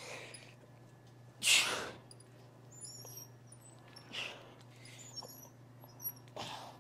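A lifter's sharp breaths during cable fly reps, one every two to three seconds, the loudest about a second and a half in. Short high squeaks are scattered between them.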